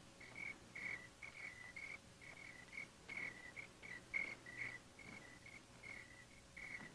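Crickets chirping at night: a steady run of short, high chirps, several a second, fairly faint.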